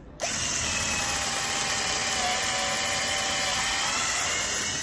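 Two 18 V MacAllister cordless drills running together, boring holes with long twist bits into wooden gate posts: a steady, loud motor whine with the grind of the bits cutting. It starts and stops abruptly.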